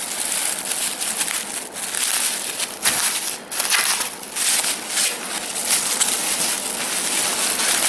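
Thin clear plastic bag crinkling and rustling as hands pull it open and work a folded tank top out of it, a continuous crackle with a few short breaks.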